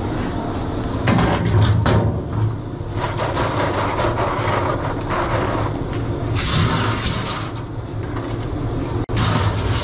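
Dish-washing noise in a commercial kitchen's wash-up area: a steady machine drone with knocks and clattering crockery, and two bursts of hissing, one about six and a half seconds in and one near the end.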